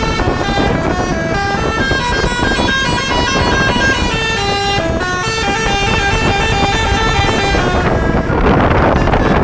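Bus 'telolet' multi-trumpet air horn playing a quick tune of short notes that step up and down in pitch. About eight seconds in the tune stops and a loud rushing noise takes over.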